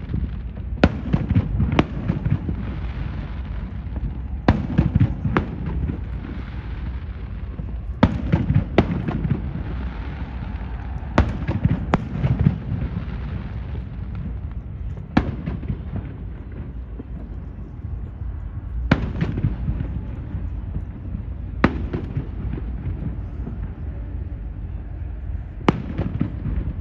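Aerial fireworks shells bursting: about a dozen sharp bangs every few seconds, several in quick pairs, over a continuous low rumble of echoing booms.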